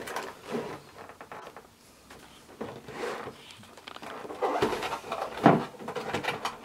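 A cardboard toy box with a clear plastic window being handled and opened on a table: rustling, crinkling and small knocks, with one sharp knock about five and a half seconds in.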